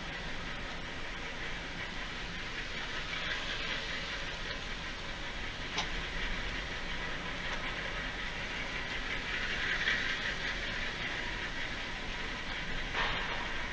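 Tractor engines running in the cruise lineup, heard as a steady hissing rumble, with a few faint clicks.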